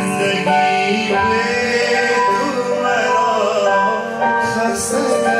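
Man singing a slow song with instrumental accompaniment, his voice holding long, wavering notes.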